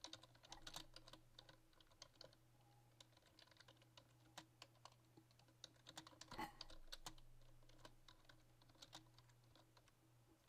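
Faint key clicks of someone typing on a computer keyboard, in two runs with a short pause between, over a low steady hum.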